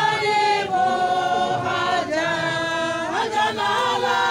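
Church choir singing unaccompanied, the voices holding long notes together and moving to new notes about two seconds in and again about three seconds in.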